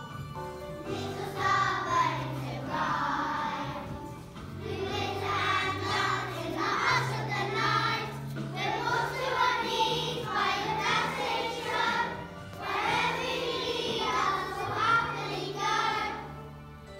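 A group of young children singing together over an instrumental accompaniment with a steady bass line. The singing comes in about a second in, pauses briefly twice, and stops just before the end.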